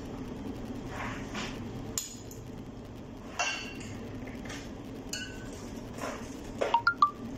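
Spoons and forks scraping and clinking against plates and bowls during a meal, with a quick run of ringing clinks near the end, over a steady low hum.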